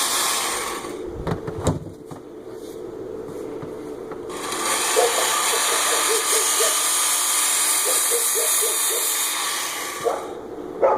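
Work Sharp Ken Onion Edition belt sharpener running with a 60-grit belt grinding an axe edge. A short burst of grinding comes at the start, a few knocks follow, then a steady hissing grind runs for about six seconds from around four seconds in.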